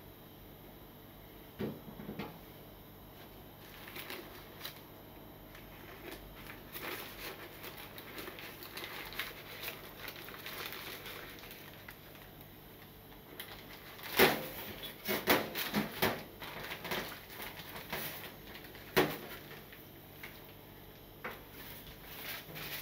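Bamboo steamer lid and tiers being handled with scattered light knocks and clatters, and a sheet of cooking paper in the basket crinkling as it is crumpled and pushed around. A few sharper clatters come in the second half.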